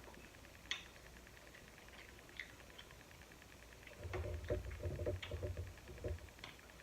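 Close-up eating of a seafood boil: scattered small clicks of shellfish shells being worked apart, then about two seconds of chewing and mouth sounds from about four seconds in.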